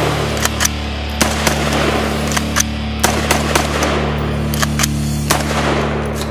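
AR-15 rifle fired in quick repeated shots, about two to three a second, over background music with a steady low drone.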